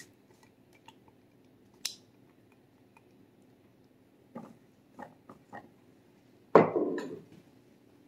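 Soft taps and scrapes of a silicone spatula against a plastic mixer bowl, a few light knocks in a row, then a single loud knock about six and a half seconds in as a glass measuring cup is set down on the wooden countertop.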